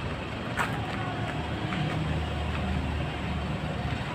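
Low, steady rumble of a motor vehicle engine, with a single click about half a second in.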